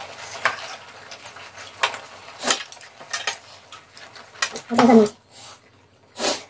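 Scattered clinks and taps of a metal spoon and chopsticks against a wide pan and bowls, with a short spoken word near the end.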